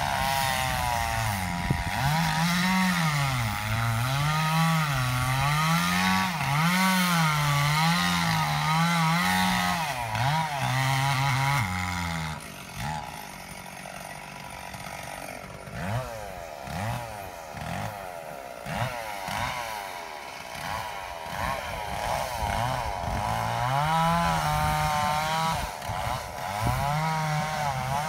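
Chainsaw cutting wood, its engine note rising and falling about once a second. About twelve seconds in it drops quieter and less steady for some ten seconds, then the rising and falling returns near the end.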